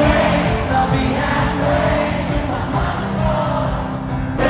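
Music with singing over a steady bass.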